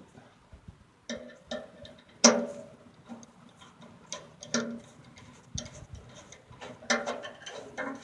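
Irregular clicks and metallic clinks from a screwdriver tightening bolts on a metal fire pit's legs and bowl. Several clinks ring briefly, and the loudest knock comes about two seconds in.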